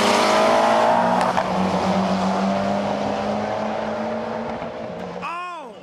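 Holset-turbocharged 4G63 four-cylinder Eagle Talon drag car at full throttle down the strip, a steady engine note fading as it pulls away. Near the end there is a brief tone that rises and falls.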